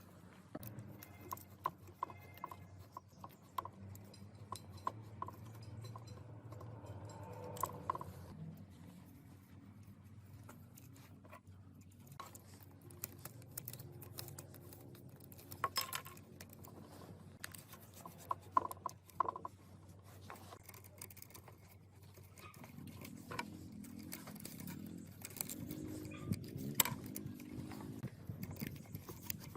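Scattered light clicks and taps of small metal tools and parts being handled at a workbench, over a low steady hum.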